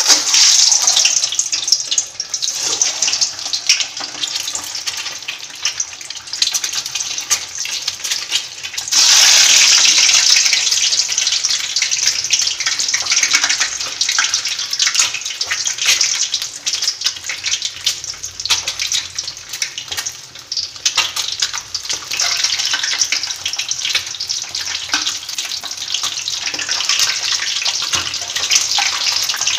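Peeled hard-boiled eggs, pricked with holes, deep-frying in very hot oil: a loud, steady sizzle full of crackle and spatter. It swells louder about nine seconds in, then settles back.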